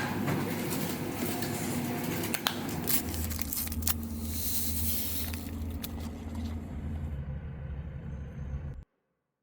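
Truck engine running as a steady low hum, with clicks and scraping handling noises at first. The sound cuts off abruptly near the end.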